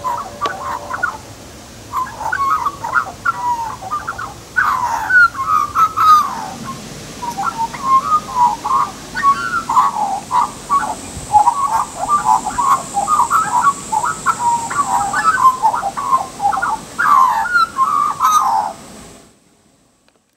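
Australian magpie singing: a long, unbroken run of fluting, gliding notes that stops shortly before the end.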